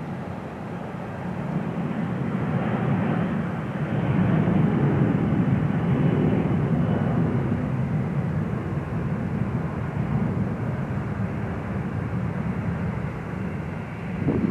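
Twin rear-mounted IAE V2525-D5 turbofans of a McDonnell Douglas MD-90-30 at takeoff thrust as the jet rolls, lifts off and climbs out. A steady deep jet rumble swells about two to four seconds in and then holds.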